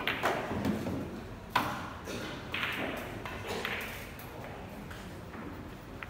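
Pool balls clacking together: a sharp click at the start and three more over the next few seconds, each with a short ring, over a low murmur of voices.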